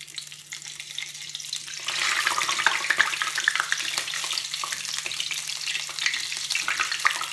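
Batter-coated cauliflower pakoras deep-frying in hot oil in a kadhai, sizzling with a dense crackle. It grows louder and fuller about two seconds in, and a ladle stirs through the oil.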